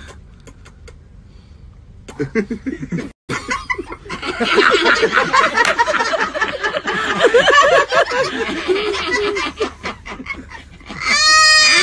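A man laughing hard in long, loud bursts, starting about two seconds in after a quiet moment. Near the end comes a short, high-pitched held cry.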